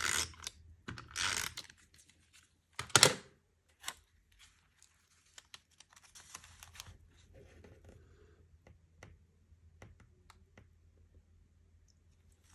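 Paper and card being handled: rustling and crinkling as a cut-out picture is fitted into a journal page, with one loud sharp rustle about three seconds in, then scattered soft taps and clicks.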